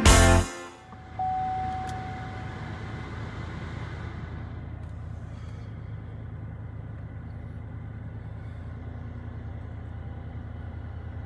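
The tail of upbeat music cuts off just after the start, then a vehicle's engine idles steadily, heard from inside the cab while stationary. A short faint tone sounds about a second in.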